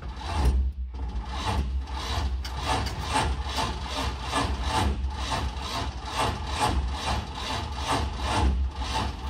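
Small-block Chevy V8 being turned over by its starter without firing, cranking slowly in an even rhythm of about three compression strokes a second: the jump pack is too weak to spin the engine fast enough to start.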